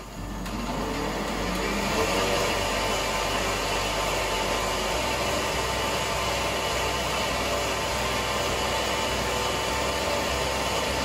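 Electric blender running steadily, speeding up over the first second or two, blending a thick poblano cream sauce to break up its lumps.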